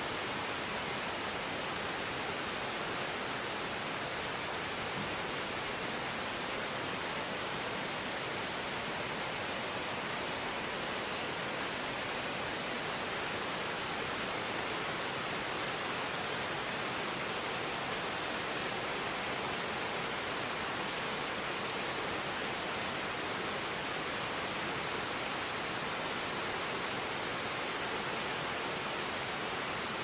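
Rushing water: a steady, unbroken wash of noise that does not change in level.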